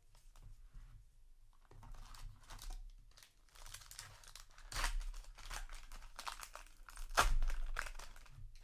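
Trading card booster pack wrapper crinkling as it is handled and torn open, with two louder rips, one about five seconds in and one about seven seconds in.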